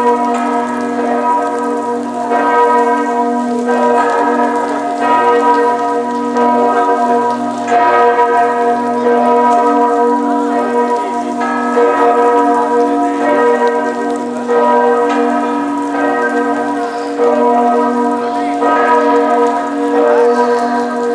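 The bells of St Mark's Campanile ringing, each fresh strike coming about every one to two seconds while the earlier tones ring on and overlap.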